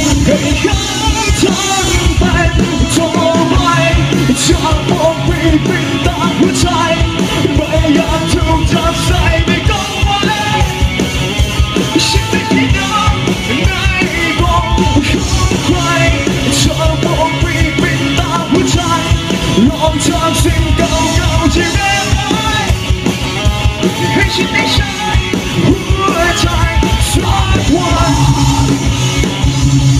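A live rock band playing loud through the stage amplifiers: distorted electric guitars, bass guitar and a drum kit, with a male singer singing and shouting into a microphone.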